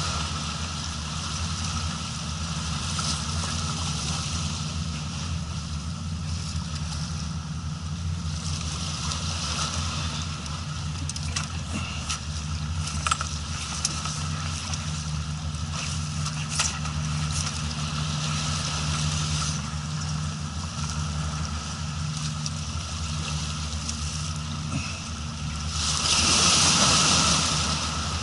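A boat engine idles steadily with a low hum, under a hiss of wind and water that swells and fades. A few sharp clicks sound in the middle, and a louder rush of hiss comes near the end.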